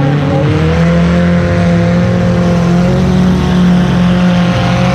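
The 2005 Chrysler Town and Country minivan's V6 engine running loudly, heard from inside its stripped-out cabin: a steady drone whose revs climb slightly in the first second and then hold.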